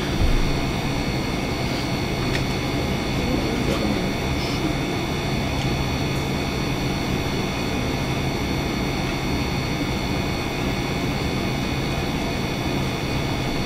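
A steady rushing noise with a low hum and several faint high whines held under it, unchanging throughout.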